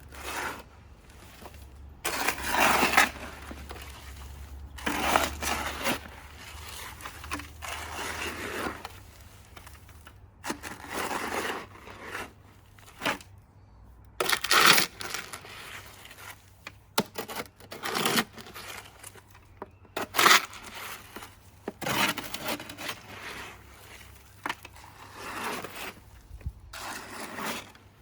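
Dry cement and ballast mix being scraped and stirred with a trowel in a bucket: a series of irregular gritty scrapes and crunches, each a second or so long, coming every few seconds.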